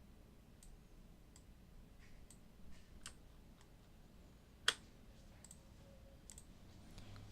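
Faint, sparse clicks of a computer mouse, about one a second, with one louder click near the middle.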